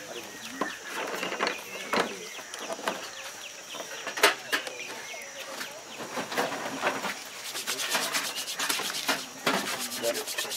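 Scattered clicks and light knocks of tranquilliser-dart parts and syringes being handled in a dart kit case, over the low murmur of onlookers' voices. The sharpest click comes about four seconds in.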